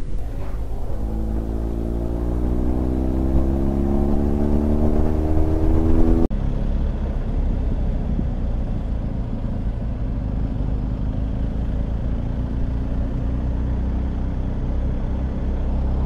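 Motorcycle engine accelerating, its pitch rising steadily for about five seconds, heard from on the bike. It cuts off suddenly about six seconds in and gives way to steady engine and wind noise from a motorcycle riding at an even pace.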